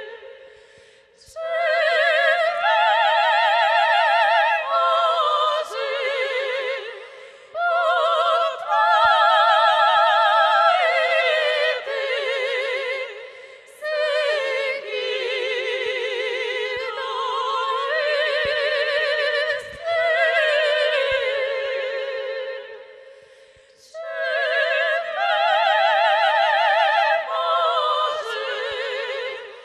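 Operatic female soprano singing through a microphone with wide vibrato, in long held phrases broken by short pauses, with a women's folk choir singing behind her.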